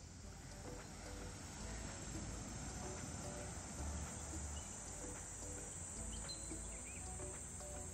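Steady high-pitched insect chirring, with soft background music underneath: short repeated mid-range notes over a low bass.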